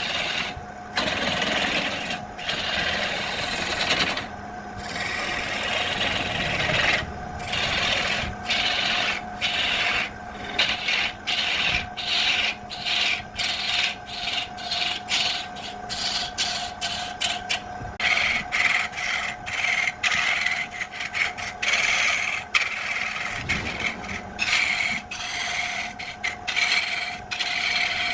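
Wood being rubbed down with an abrasive in repeated hand strokes, each a short scratchy hiss, coming quicker in the second half. A steady hum sits underneath.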